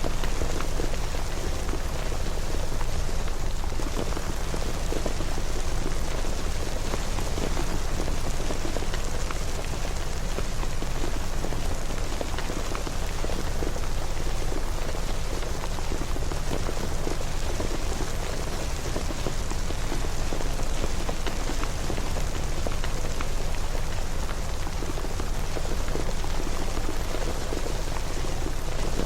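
Steady rain falling, a continuous hiss of many fine drops, over a steady low rumble.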